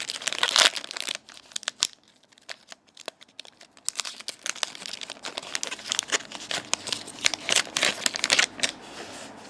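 Crinkling and tearing of hockey card pack wrappers as cards are handled: a burst of crackling, a sparse stretch a second or so in, then dense crinkling and clicks again from about four seconds in.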